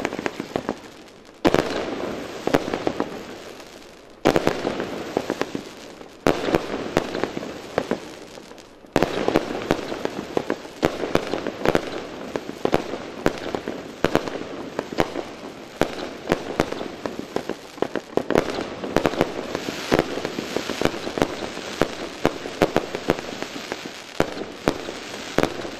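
Pyromould 'Catwalk' 48-shot firework cake firing. Shots burst every two to three seconds, each followed by a long dense crackle that dies away. From about nine seconds in, the shots come faster and the crackling runs on without a break, dotted with sharp pops.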